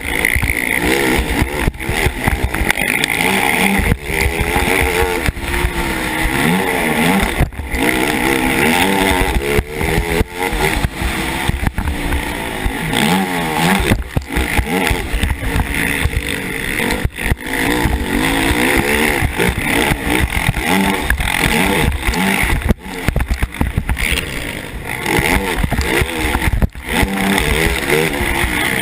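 KTM 450 SX racing quad's four-stroke single-cylinder engine running hard, its pitch repeatedly rising and falling as it revs up through the gears and backs off, with brief drops in the sound every few seconds.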